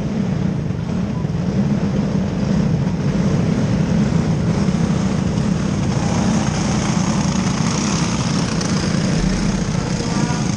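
Engines of small winged dirt-track sprint cars running steadily as the field circles the oval, growing louder as cars come past near the end. The yellow flag is out, so the field is under caution.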